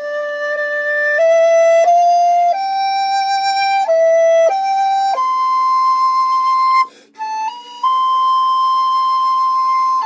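Music: a slow solo melody on a flute-like wind instrument over a faint low drone. Each note is held, climbing step by step to a long high note, with a short break about seven seconds in before it returns to the same long note.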